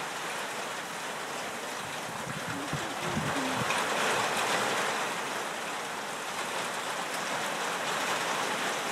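Steady rain falling: a dense, even hiss that swells slightly about four seconds in.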